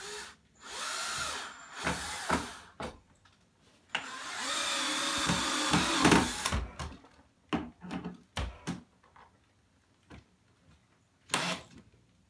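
Cordless drill running in several short bursts, with the longest lasting about two and a half seconds, driving screws into a window frame. A few sharp knocks follow.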